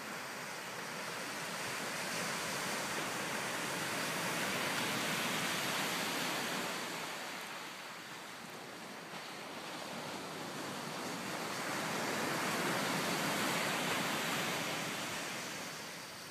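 Ocean surf breaking and washing up a sandy beach: a broad rushing sound that swells and fades twice as successive waves come in.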